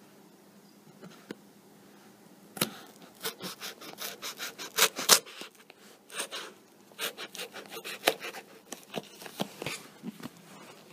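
Fingers scratching and rubbing at a cardboard mailer box and its paper shipping label, starting about two and a half seconds in: a quick run of short scraping, rustling strokes, loudest near the middle.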